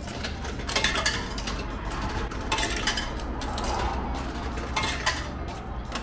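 100-yen coins fed one at a time into a retro udon vending machine, each dropping through the coin mechanism: three drops about two seconds apart, over a steady low hum.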